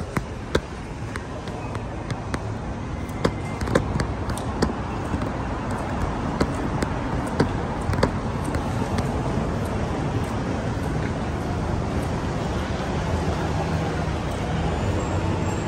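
Steady low rumble of road traffic or a moving vehicle, growing a little louder, with scattered sharp clicks and knocks over the first half.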